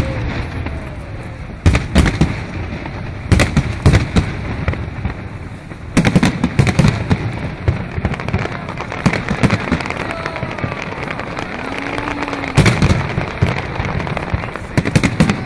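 Aerial fireworks display: loud shell bursts going off at uneven intervals, with a dense cluster of quick bangs about six seconds in and lighter popping after it.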